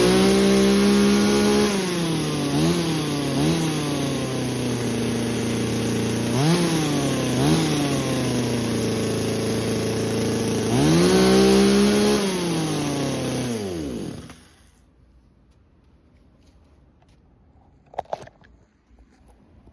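Dream Power ECS-26D two-stroke engine chainsaw idling and being revved in short blips and a couple of longer pulls of the throttle, then shutting off about 14 seconds in. A brief click follows in the quiet near the end.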